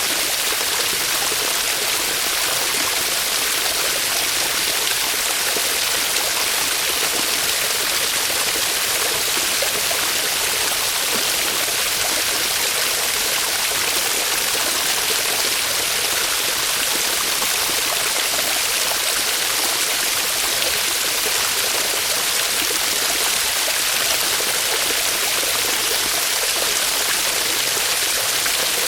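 Small waterfall splashing steadily, an even hiss of falling water with no change in strength.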